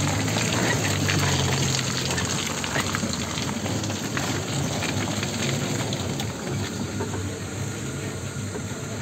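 Off-road vehicle's engine running as it drives along a rutted mud track, with a steady rushing noise from the tyres in the mud. The engine hum is strongest at first and eases back about two seconds in.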